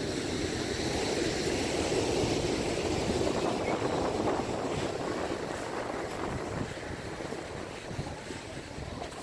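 Ocean surf breaking and washing up the shore, a steady rushing noise, with wind buffeting the microphone; it eases a little after the middle.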